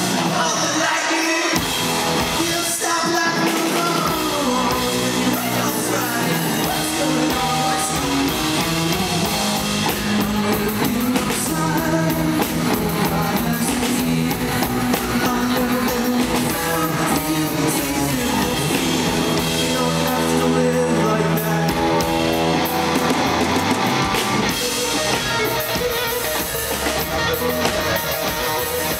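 Live rock band playing a song: sung lead vocals over electric guitars and a drum kit with cymbals.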